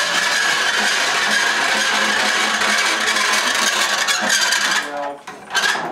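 A hand-cranked pasta machine's cutting rollers squeaking pretty bad as the crank is turned: a steady high squeal that stops about five seconds in, then a short squeak at the end. The squeal comes from the cutter wheels themselves, which are taken to want a little oil.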